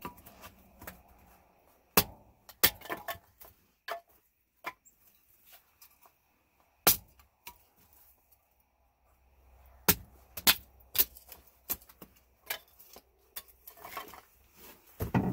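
Split dry kindling sticks clacking against each other as they are picked up and laid onto a pile. The knocks come at irregular intervals, with short quiet gaps between them, and the loudest are about two, seven and ten seconds in.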